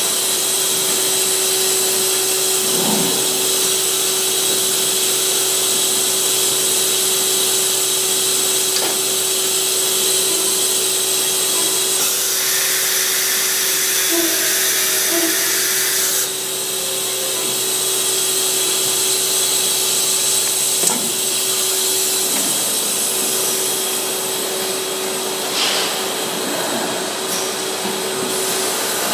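Deckel Maho DMC 165V vertical machining center running with a steady whine and hiss, a louder rush of hiss for a few seconds near the middle, and a low hum that stops late on.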